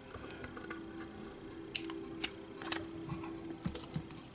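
Light clicks and taps of fingers handling a small metal soldering station while peeling the protective film from its display, the clicks coming in a few quick clusters in the second half. A faint steady hum runs underneath.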